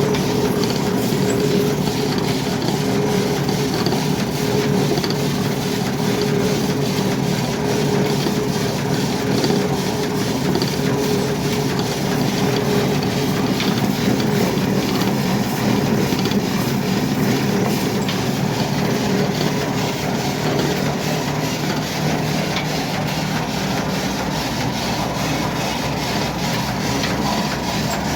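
Heavy machinery running steadily, a constant hum with a dense mechanical noise under it.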